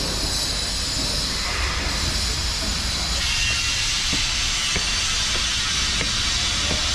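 Steady outdoor rumble and hiss, growing brighter about three seconds in, with light footsteps ticking at an even walking pace in the second half.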